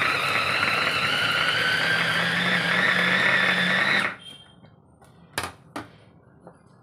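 Small electric push-top mini chopper running for about four seconds, its motor whining and rising slightly in pitch as it minces raw chicken with onion, green chillies and coriander into keema, then stopping abruptly. Two sharp clicks follow as the chopper is handled.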